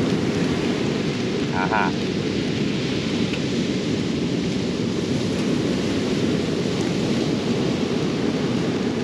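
Steady low rumble of ocean surf breaking on the shore, mixed with wind on the microphone.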